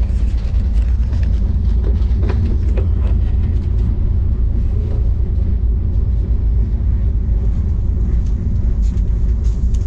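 Steady low rumble of a moving passenger train, heard from inside a sleeper coach, with a few faint knocks and rattles on top.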